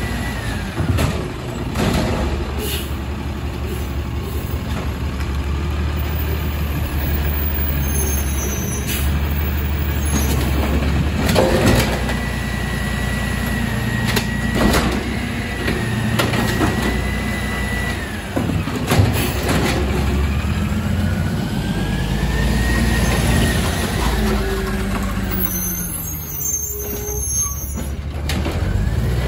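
Automated side-loader garbage truck emptying blue recycling carts: the diesel engine drones and revs under the hydraulic pump, with a high whine that rises, holds and falls twice as the arm lifts and lowers. Knocks and bangs come as each cart is tipped and its load drops into the hopper.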